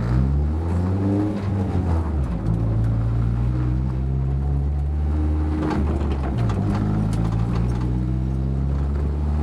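Renault Clio II 1.6 16V four-cylinder engine heard from inside the cabin while driving. The revs rise and fall in the first two seconds, then hold steady, with a brief dip and recovery about six seconds in.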